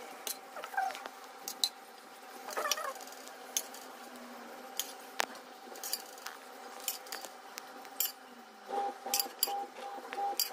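Scattered light clinks and taps of a serving spoon against ceramic bowls as curry is dished out.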